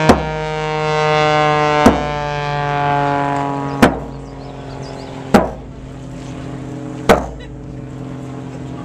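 An aerobatic propeller plane's engine drones overhead, swelling and dropping slightly in pitch as it passes, then fading a little. Five sharp strikes ring out over it, spaced about one and a half to two seconds apart.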